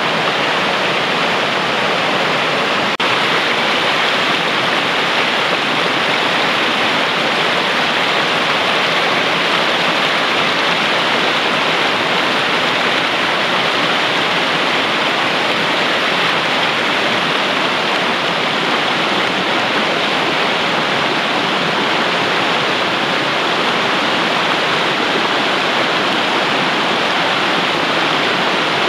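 Fast, clear mountain stream rushing steadily over rocks and through a riffle, a loud even water noise. The sound dips for an instant about three seconds in.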